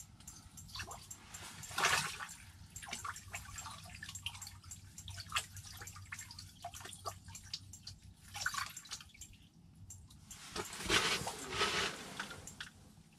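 Water dripping and splashing at an ice-fishing hole as a hooked whitefish is brought up to it and lifted out. A burst of splashing near the end is the loudest.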